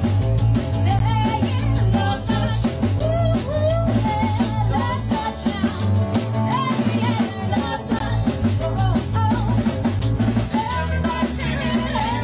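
Live skiffle / rock 'n' roll band playing a song: sung vocal over guitar, bass and drum kit.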